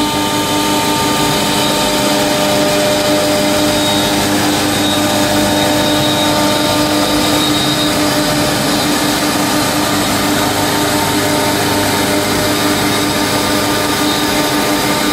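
CNC router spindle running at speed with its bit cutting plywood on the HOMMEL HM-2030 VM: a steady whine over a dense hiss of cutting.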